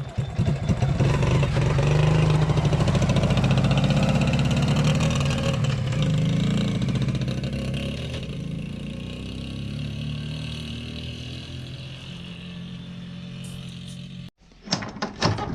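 Yamaha Grizzly 80 ATV's small single-cylinder four-stroke engine pulling away under throttle, its pitch rising and falling, then fading steadily as the quad rides off, running again after its ignition switch was replaced. The sound cuts off abruptly near the end.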